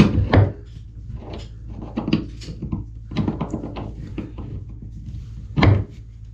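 Irregular clicks and knocks of a spanner working against a chrome bath tap as a seized quarter-turn cartridge is strained at without coming undone, with one louder clunk near the end.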